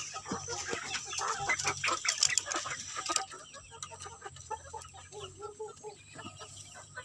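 Kampung chickens clucking in short repeated calls. A burst of scratchy clicking and rustling fills the first three seconds, then dies down.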